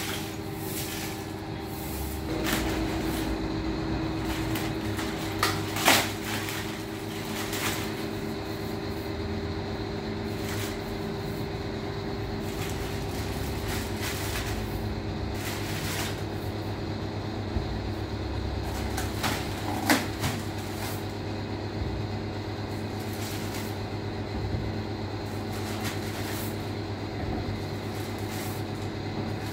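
A steady mechanical hum with occasional sharp knocks and rustles of plastic-wrapped soda bottles being handled on a tiled floor, the loudest knocks about six seconds in and near the middle.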